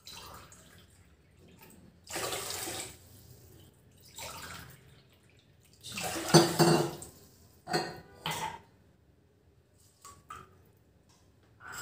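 Water poured from a glass into a metal pot of washed rice in several short pours with quiet gaps between, the strongest about six seconds in: the cooking water being added to the rice.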